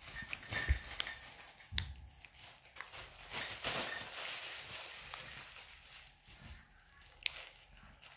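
Plastic packaging being handled: crinkling and rustling, densest about halfway through, with a few sharp clicks and knocks.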